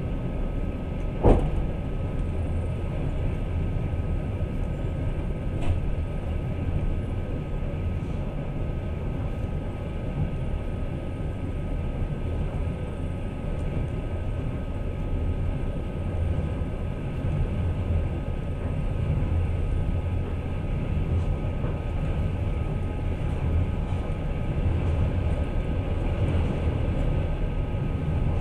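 Passenger train carriage running along the rails, a steady low rumble heard from inside the carriage, with one sharp knock about a second in.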